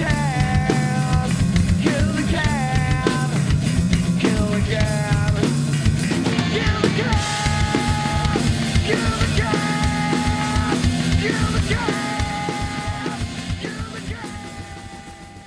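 Live rock band playing: dense drum-kit beats under distorted guitar and held, bending melodic lines. The music fades out over the last few seconds.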